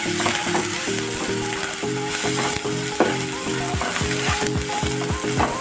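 Onion, ginger-garlic paste and ground spices sizzling in hot oil as they are stirred together in a pan, under background music with a steady beat.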